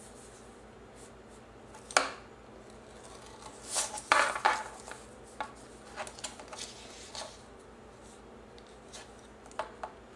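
Bone folder scraped along the grooves of a Scor-Pal scoring board, scoring cardstock: a sharp tap about two seconds in, a louder cluster of scrapes around four seconds, then lighter scratches and taps.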